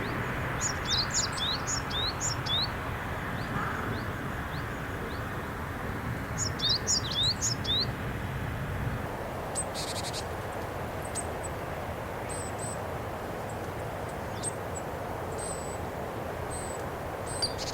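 Japanese tit calling: two quick bouts of high, down-slurred notes, then short, scattered high notes, over a steady background rumble.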